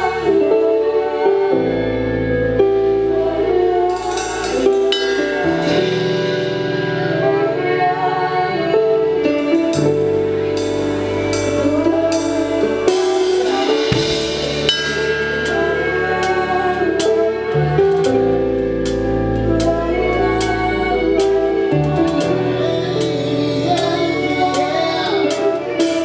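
Live band playing a slow song: a drum kit struck with sticks, with cymbal crashes and drum hits, over sustained bass notes and chords, with singers.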